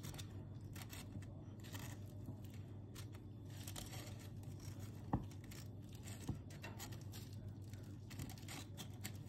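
Knife scraping butter across a slice of toast: repeated short rasping strokes, over a low steady hum, with one sharp click about five seconds in.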